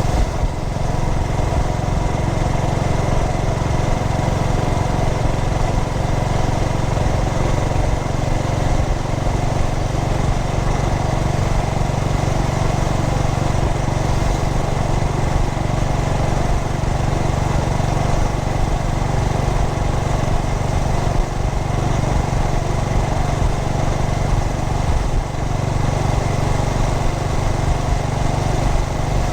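Air-cooled single-cylinder engine of a 2003 Yamaha SR400 motorcycle, running steadily as the bike is ridden.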